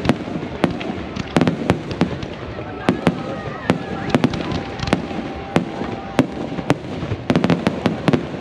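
Aerial firework shells bursting in quick, irregular succession: a string of sharp bangs and pops, bunched into rapid volleys about a second and a half in and again near the end.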